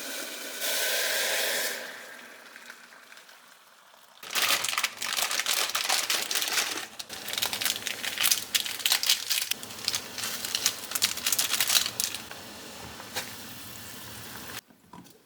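Dense crinkling and rustling, full of small crackles, from about four seconds in until it cuts off suddenly just before the end; a shorter hiss comes in the first two seconds.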